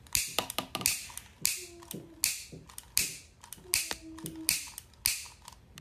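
Long-nosed utility lighter clicked over and over, about eight times at a steady pace, each trigger click followed by a short hiss; it fails to light the candle.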